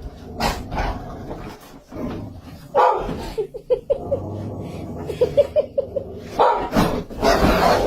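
A dog barking, with two quick runs of short yips.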